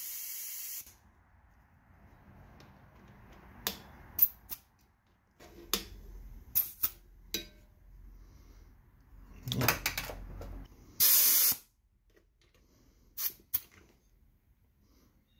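Compressed air hissing in short bursts at a motorcycle tire's valve stem, with sharp clicks and knocks of the air chuck and tire gauge between: the new front tire being brought up to 35 PSI. The first burst stops within a second, and a second loud burst comes about 11 seconds in.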